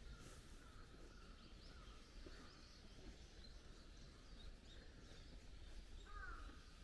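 Faint ambience with scattered small bird chirps, and one brief, clearer call about six seconds in.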